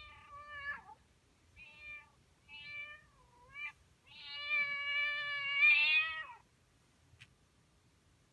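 Recorded cat meows played through a phone's speaker by an animal-sounds app: three short meows, then a long, louder one that falls in pitch at its end.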